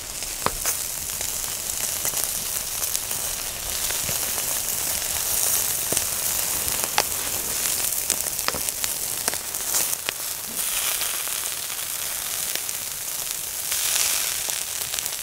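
Chicken skin sizzling on a wire mesh grill over charcoal: a steady frying hiss with many scattered small pops and crackles.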